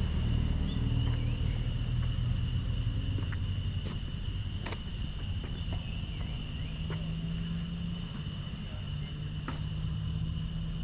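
Steady high-pitched insect drone, two unbroken buzzing tones, over a low rumble, with a few short chirps and faint clicks scattered through it.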